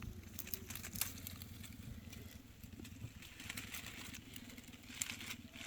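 A small engine running steadily, a low pulsing hum, with scattered clicks and crackles over it.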